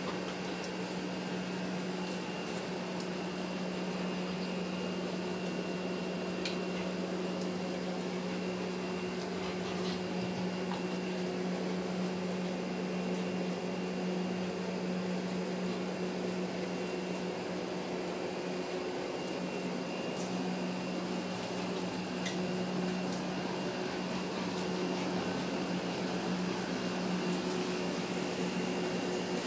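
A steady low hum with an even hiss behind it, and a few faint clicks.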